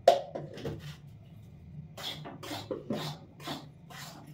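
Metal spatula scraping and stirring flour and ghee in a steel wok: a sharp knock at the start and a few quick rasping strokes, then, after a short lull, an even run of about four scraping strokes a second.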